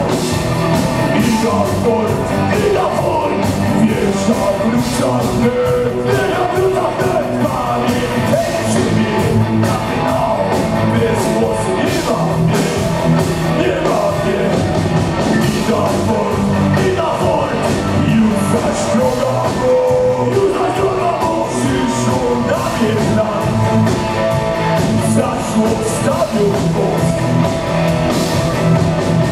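Live rock band playing loud and steady: electric guitars, drums and a singer into a microphone.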